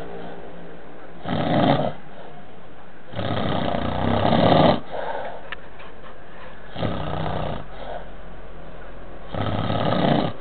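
A person snoring in deep sleep: four snores, one every two and a half to three seconds, the second the longest and loudest.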